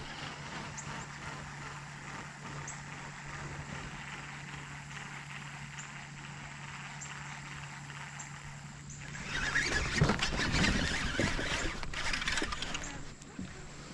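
A small boat's electric trolling motor hums steadily. About nine seconds in the hum stops and a louder rushing noise takes over for about four seconds, then fades.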